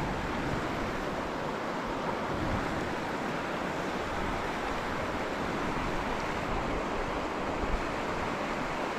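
Mountain trout stream flowing steadily over rocks, an even water noise.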